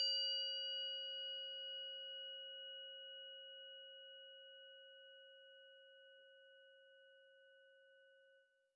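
A single struck bell rings out and slowly fades away: a low tone with higher overtones, the highest dying out first. It marks the start of a period of silent reflection in the prayer.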